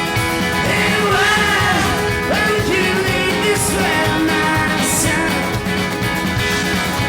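Live alt-country rock band playing, with strummed guitars and a lead vocal singing over them.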